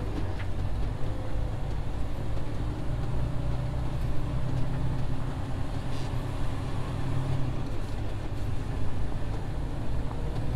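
Semi truck's diesel engine running steadily as the truck drives slowly out of a gravel yard, heard from inside the cab as a steady low drone.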